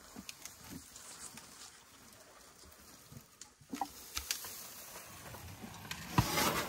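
African elephants moving close to the microphone in dry grass: scattered soft rustles and clicks. Near the end a loud rush of noise as an elephant's trunk tip comes right up to the microphone.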